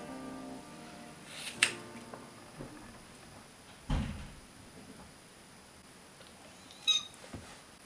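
Scissors snipping through a thick lock of curly hair: one sharp, crisp snip about a second and a half in. A dull thump follows around four seconds in, and a short metallic click with a slight ring comes near the end.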